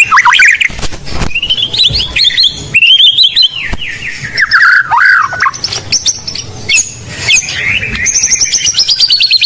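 White-rumped shama (murai batu) singing loudly and without pause: a varied run of clear whistles, rising and falling glides and fast trills of repeated notes, ending in a rapid high descending series.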